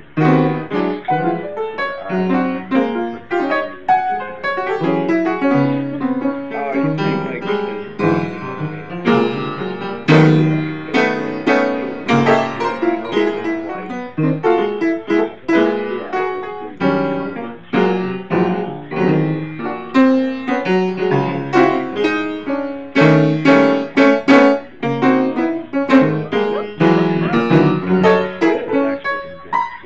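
Piano music, many quick struck notes and chords.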